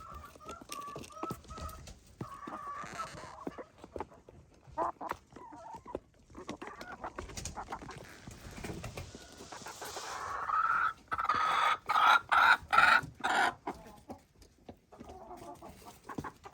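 Chickens clucking, with a louder run of broken calls about eleven to thirteen seconds in.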